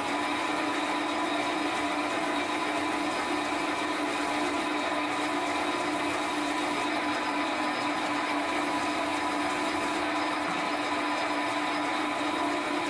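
Metal lathe running at a steady speed, spinning a buffing wheel in its chuck while a small phosphor bronze bearing half is held against the wheel and polished.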